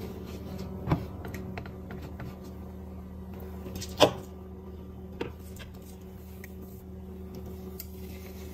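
A spatula clicking and knocking against a nonstick frying pan as oil is spread around it. There are a few sharp knocks, the loudest about four seconds in, with lighter ticks between them, over a steady low hum.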